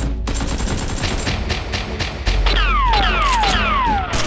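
Rapid gunfire sound effects, a fast run of shots, dubbed over toy blasters. In the second half, about four falling whistles sound among the shots.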